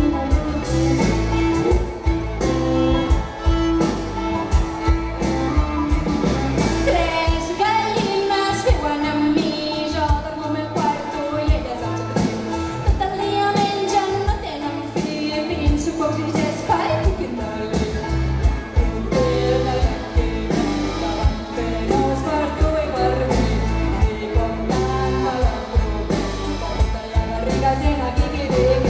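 Live old-time string-band music: plucked strings and fiddle over a steady beat, with singing over most of it.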